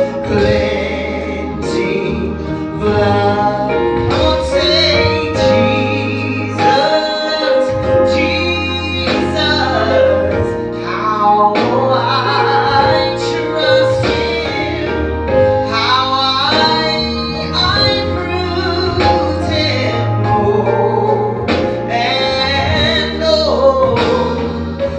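A woman singing a gospel song into a handheld microphone, with long held, bending notes over instrumental accompaniment with a steady bass line and a beat.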